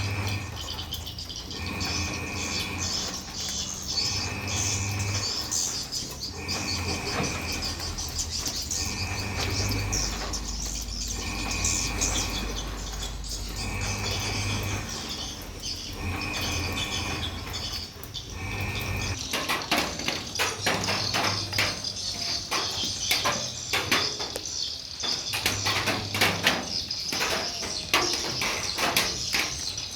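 Swiftlets twittering and chirping high. For the first two-thirds a short call repeats about every two seconds, the pattern of a swiftlet lure sound on a loop. After that it stops and dense, rapid swiftlet chirps and clicks take over.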